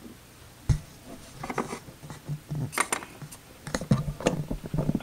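Small plastic clicks and taps of toy figures and dollhouse props being handled and set down, with a sharper knock just under a second in and clusters of taps further on.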